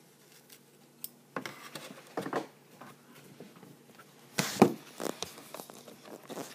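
Handling noises: short rustles, scrapes and knocks as hands and forceps work a tarantula's silk egg sac over a cardboard box, the loudest knock about four and a half seconds in.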